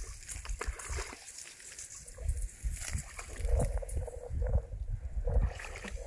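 A young Border Collie splashing and wading in shallow water at the bank, with irregular sloshing and small splashes.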